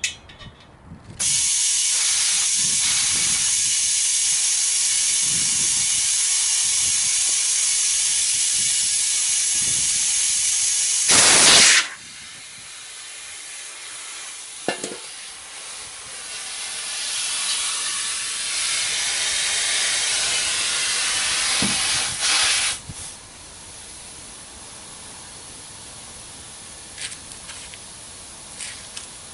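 Compressed air hissing loudly and steadily while a truck tire is mounted and aired up with a homemade cheater (bead-seater) tank. About eleven seconds in comes a short louder blast of air. Then the hiss drops, swells again for several seconds and settles into a quieter steady hiss of the tire filling.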